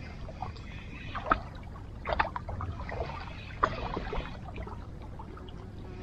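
Small waves lapping and splashing at the water's edge, with a few sharper splashes about one, two and three and a half seconds in, over a steady low rumble.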